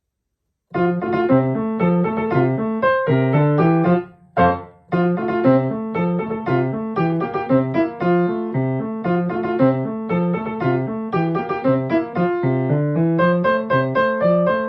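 Solo piano playing the accompaniment to a children's song. It starts just under a second in and breaks off briefly about four seconds in, where there is one short chord, then carries on.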